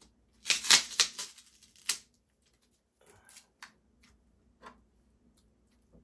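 Handling clicks and rustles of a battery and its red leads with a yellow XT-60 plug being fitted to a model helicopter: a quick flurry of sharp clicks in the first two seconds, then a few single clicks.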